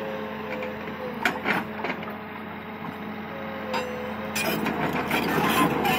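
Komatsu PC200 excavator's diesel engine running steadily, with a few sharp knocks about a second in and a burst of rattling knocks near the end as the hydraulic breaker's chisel presses into the rock pile.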